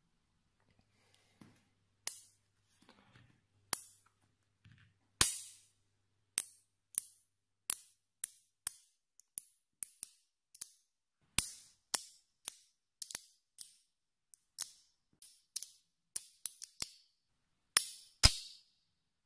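Small magnetic balls snapping together one by one in the hand, a series of sharp, bright clicks at an uneven pace, getting quicker towards the end.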